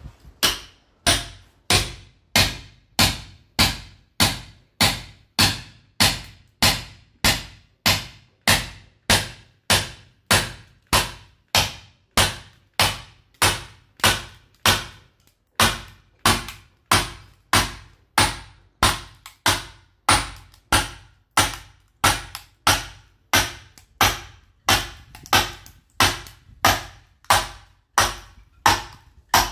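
Sledgehammer striking a steel splitting chisel (talhadeira) driven into a caviúna log, splitting firewood: a steady run of sharp blows, almost two a second, with a short pause about halfway.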